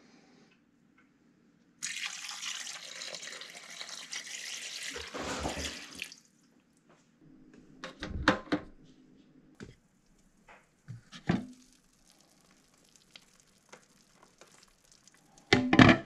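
Liquid poured from a plastic cup into a slow cooker's pot over raw meat, a splashing pour of about four seconds that starts about two seconds in. A few short clicks and knocks follow as the Crock-Pot's dial is turned.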